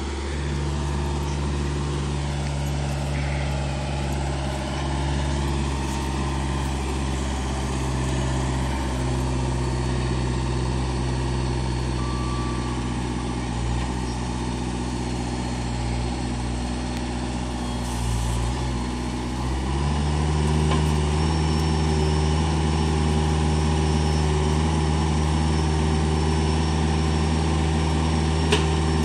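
Diesel engines of a semi tractor and a truck-mounted forklift running at idle while the forklift unloads the flatbed. About twenty seconds in, the engine note steps up to a higher, louder speed, and there is a single short knock near the end.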